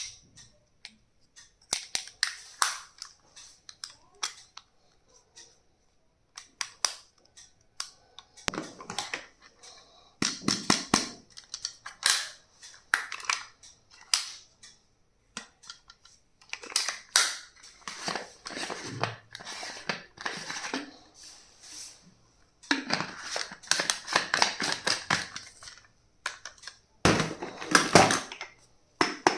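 Stationery being unboxed and handled: crackling plastic packaging and bursts of crinkling, broken up by sharp clicks and taps of plastic items.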